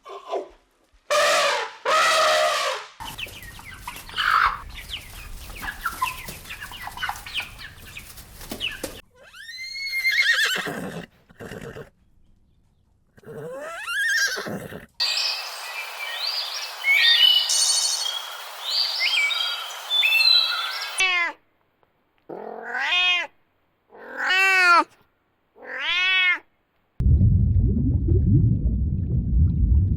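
A string of different animal calls cut one after another. A few pitched calls are followed by a noisy stretch, then rising-and-falling calls, then high chirping over a hiss. Four short rising-then-falling calls come after that, and a low noisy sound closes it near the end.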